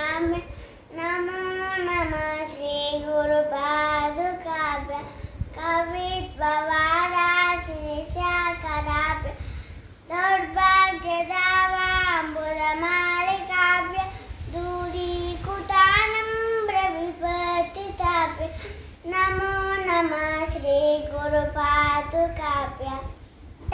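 A young girl singing solo and unaccompanied, in melodic phrases a few seconds long with short breaks for breath between them.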